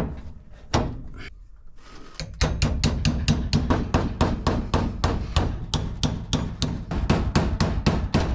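Hammer driving nails into wood framing: two single blows, a short pause, then a quick, even run of blows, about four a second.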